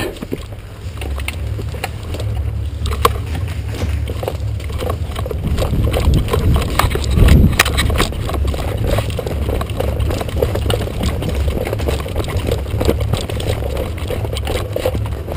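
Rumbling wind and handling noise on a body-worn GoPro as the wearer moves through an airsoft field, with many irregular knocks and clicks of footfalls and gear.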